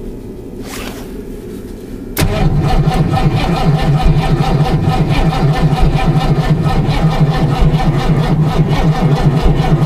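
Ford 331 stroker small-block V8 cranking on its starter in −14 degree cold without catching: the starter engages suddenly about two seconds in and turns the engine over in an even, rapid beat. The engine will not fire in the extreme cold.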